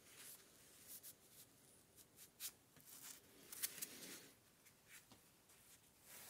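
Near silence with faint, scattered clicks and light scrapes of small metal parts and a screwdriver being handled.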